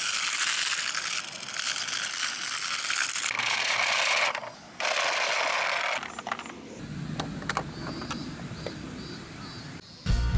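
Small die-cast toy bus's wheels rolling along a rough, rusty metal surface: a gritty rattle in two runs with a short break, then quieter scattered clicks. Music starts near the end.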